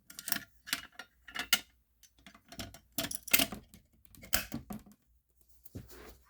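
A bunch of keys jangling and clicking in a string of irregular rattles as a key is fitted into a fire alarm panel's key switch and turned.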